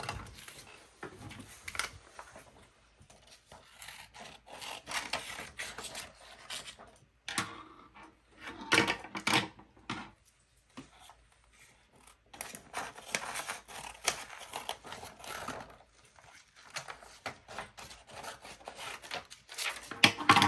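Scissors cutting paper in irregular, uneven snips, with paper rustling between the cuts.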